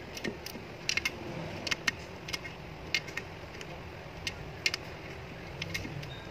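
Ratchet wrench tightening a fastener on the rear housing of an alternator: sharp metal clicks at irregular spacing, a few a second, as the handle is worked back and forth.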